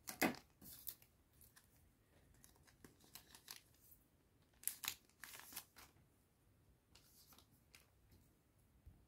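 Faint rustling and short tearing crinkles of a trading-card booster pack wrapper being opened, in a few scattered bursts, the loudest about five seconds in.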